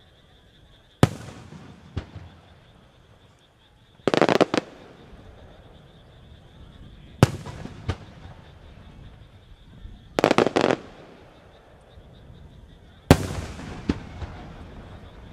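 7-gou (about 7-inch) aerial firework shells, fired alternately from two positions, going off in a series of loud reports about every three seconds. Some are single sharp booms with a long rolling echo, others a quick rattling cluster of cracks.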